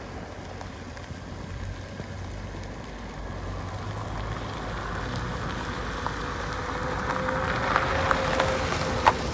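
Ford Fiesta hatchback driving up close, its engine and tyre noise on the wet track growing louder, with a few sharp ticks near the end.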